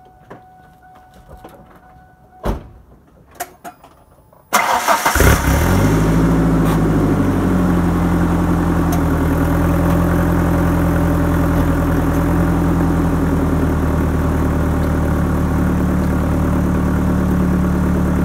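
A few faint clicks, then about four and a half seconds in a pickup truck's engine cranks briefly and starts, heard from the chrome exhaust tip. It runs at a fast idle that settles lower over the next few seconds, then idles steadily.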